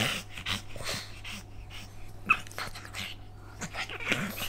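Pugs breathing noisily and scuffling in play, in short irregular bursts, with a brief high squeak a little over two seconds in.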